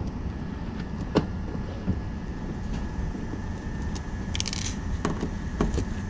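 Screwdriver working the screws of a fire alarm control panel's metal faceplate: a few sharp clicks, about a second in and again near the end, and a short scrape, over a steady low rumble.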